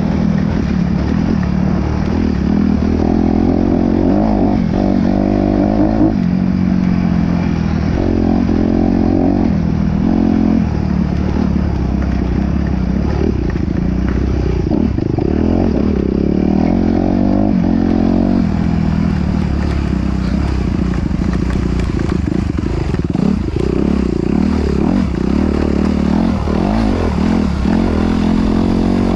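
Off-road vehicle engine running under load, its pitch rising and falling again and again as the throttle is worked, with some rattle and clatter.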